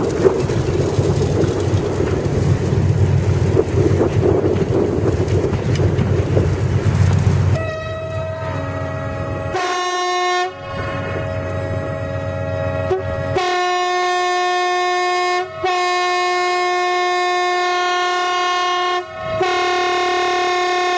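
Narrow-gauge train of two Lxd2 diesel locomotives rumbling along. About a third of the way in, the locomotive horn starts sounding the Rp1 'attention' warning for the road crossing. It comes as long blasts with brief breaks, several times over, to the end.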